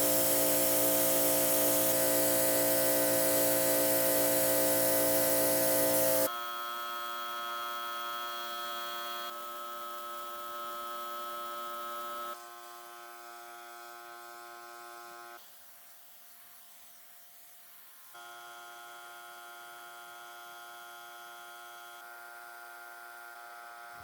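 RYOBI electric pressure washer running: a steady motor hum with the hiss of the spray. It comes in several short stretches that cut abruptly from one loudness to another, loudest for the first six seconds.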